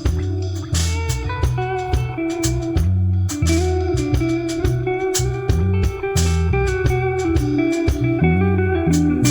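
Live band playing an instrumental section with no vocals: electric guitar lead over electric bass and a drum kit.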